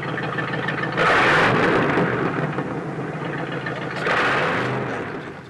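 Vintage saloon cars driving past on a wet road: engine noise with tyre hiss, loud and dense, swelling twice as cars come close, with the engine pitch gliding in between.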